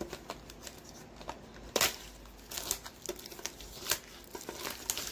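Crinkling and scattered light clicks of packaging being handled as a Pokemon card tin is taken up to be opened, with sharper crackles about two seconds in and again near four seconds.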